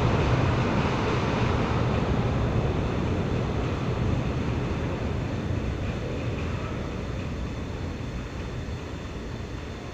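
R46 subway train pulling out of the station, its low rumble of wheels and motors fading steadily as it recedes down the tunnel.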